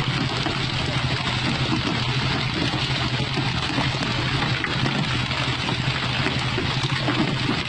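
Fishing boat under way: the engine's steady low drone beneath the rushing of water from the bow wave and wake along the hull.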